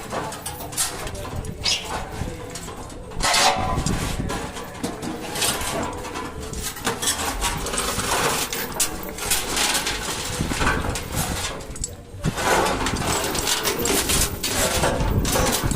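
Irregular metal clanks and rattles as a corn-cob grinding machine with its conveyor is hoisted and shifted with a pulley.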